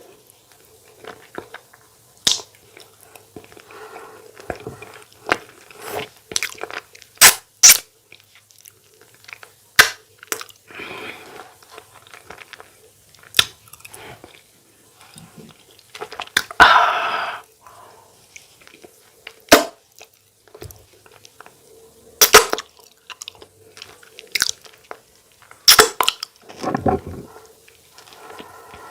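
Close-miked eating: a person chewing and smacking, with irregular sharp clicks and a couple of longer wet, noisy sounds along the way.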